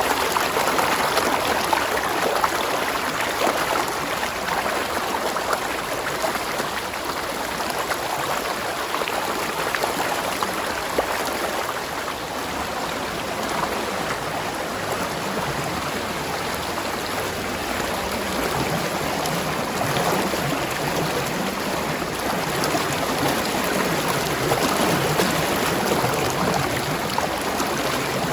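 Spring water running in a stream: a steady, even babble of flowing water.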